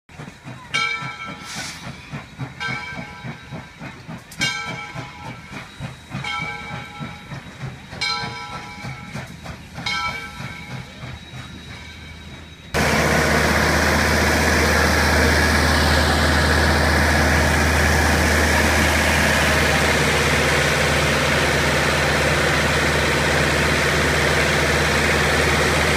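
Steam locomotive and train rolling past, its bell ringing in slow strokes about every two seconds. About halfway through, the sound changes suddenly to a loud, steady hiss with a low rumble underneath, as of steam from the locomotive standing close by.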